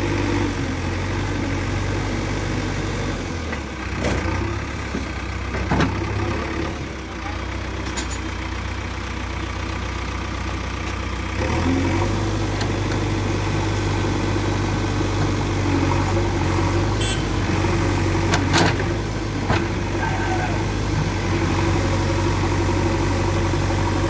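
Heavy diesel engines running as a JCB 3DX backhoe loader works its arm to bring the bucket against a mud-stuck, loaded tipper lorry. The engine note steps up and grows louder about halfway through, and a few short metallic knocks come through.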